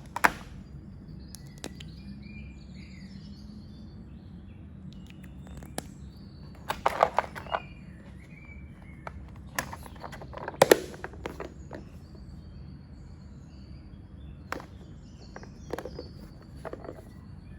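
Sharp clicks and knocks of small items being handled and set down, a few at a time, the loudest about 7 and 11 seconds in. Faint bird chirps sound now and then behind a steady low hum.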